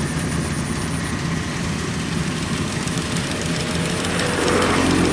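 Kubota DC93 combine harvester running steadily, its engine and machinery making a continuous low drone with a rushing, rattling noise over it.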